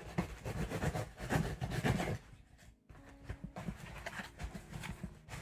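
Packing tape being torn and the flaps of a cardboard shipping box pulled open: a rough scraping tear for about two seconds, then quieter rustling and scraping of the cardboard.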